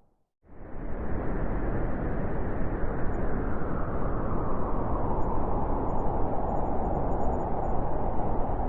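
Howling wind: a steady rushing noise that sets in after a brief moment of silence at the start, with a higher, hollow band building toward the end.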